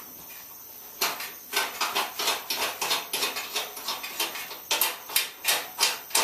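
Sharp metal clicks and clinks at an irregular two or three a second, starting about a second in: bolts being worked loose from a truck grille bolted to a shipping board.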